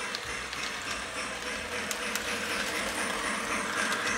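Model train running along a light-up Christmas train track: a steady running noise with a few faint clicks.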